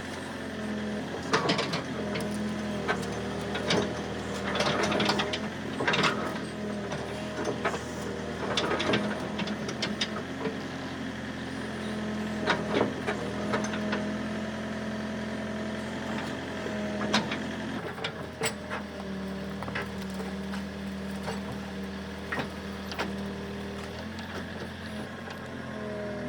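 An engine running steadily with small changes in pitch, with repeated sharp knocks and clanks over it, most of them in the first half.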